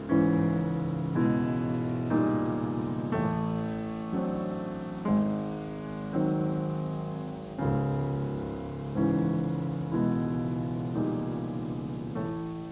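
Slow piano music: chords struck about once a second, each left to ring and fade before the next.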